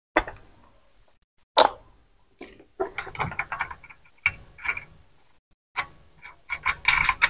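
Metal clicking and clinking as nuts are worked off the steel studs of an electric geyser's heating-element flange plate: irregular clusters of sharp ticks, with a louder single knock about a second and a half in.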